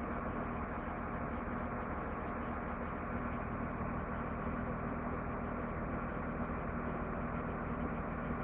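Truck engine idling steadily: a constant low hum that does not change.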